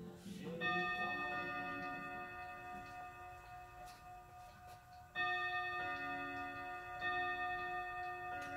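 Bell-like chimes struck several times, each stroke ringing on with a long, overlapping sustain: a first stroke about half a second in, a louder one about five seconds in, and more near the end.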